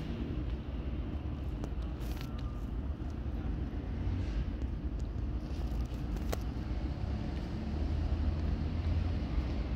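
Steady low outdoor background rumble, with a few faint clicks.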